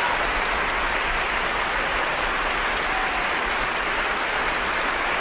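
Large concert audience applauding, a dense, steady wash of clapping just after the music has ended.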